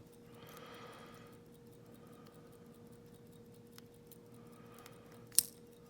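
Small parts of a disassembled Yale pin-tumbler lock cylinder being handled as its pins are taken out: a faint scraping at first, a few light ticks, and one sharp metallic click near the end.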